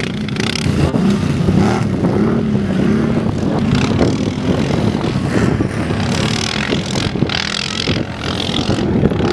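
Racing quad (ATV) engines revving up and down continuously as the quads race over a dirt track, the pitch rising and falling with the throttle.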